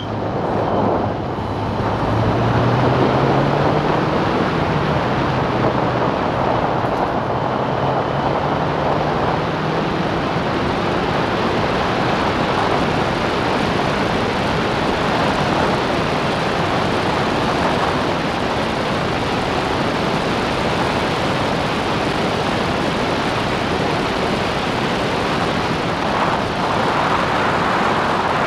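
Clubmans race car's engine accelerating, its pitch rising through the gears with a brief drop at an upshift about a second in and again near four seconds. It then runs at high speed under heavy wind noise on the car-mounted microphone.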